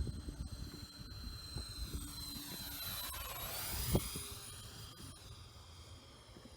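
Radio-controlled scale Boeing 737 MAX 8 model flying past, its engines giving a steady high-pitched whine with a sweeping whoosh as it goes by around the middle. The whine steps up in pitch just after halfway, as on a throttle increase, and a single thump comes about four seconds in.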